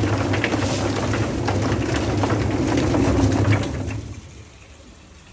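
A motor-driven machine running with a steady hum under a spattering, rattling noise, cutting off about four seconds in.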